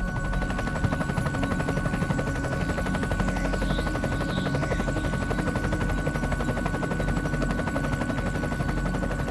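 Quadcopter drone's propellers running in flight: a fast, even buzz of rotor pulses with a steady high motor whine over it.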